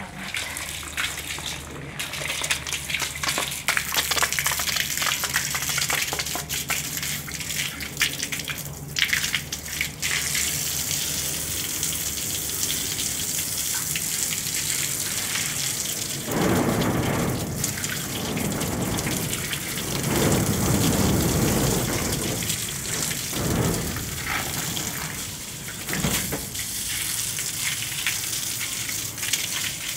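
Water jetting from a hose onto a tiled floor and wall as the floor is washed down: a steady spattering hiss that swells louder for a couple of seconds at a time as the jet moves.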